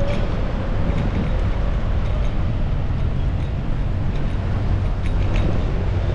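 Steady rumble of wheels and wind on the microphone while riding fast along a paved cycle path, with a few light clicks near the end.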